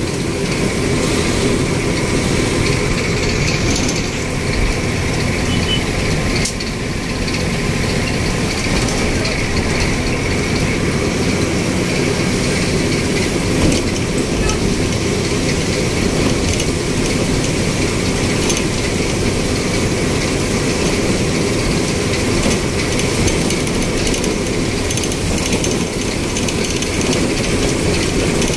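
Steady running noise heard from inside a road vehicle on the move: engine, tyres and wind together, a constant low rumble with no breaks.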